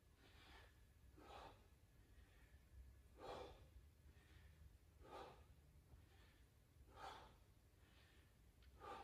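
A person breathing hard through a set of bodyweight dips: a short, sharp breath out about every two seconds, one per repetition, with fainter breaths in between. Quiet overall.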